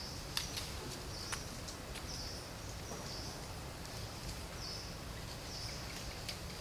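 Outdoor ambience: steady background hiss with insects buzzing in short high bursts, repeating every second or so, and a few faint clicks in the first second and a half.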